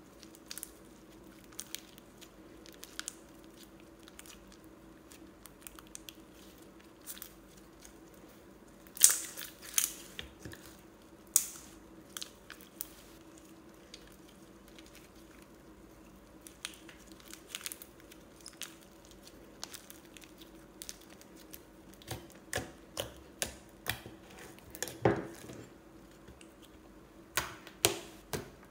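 Glossy slime being squeezed, stretched and pressed by hand, giving sharp wet clicks and pops at irregular intervals. The loudest come about nine and eleven seconds in, with a quick run of them near the end.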